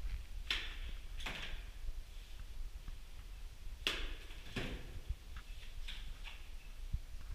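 Cement plaster being flung onto a wall with a trowel and scooped from a bucket: about five short wet scrapes and swishes, a second or more apart.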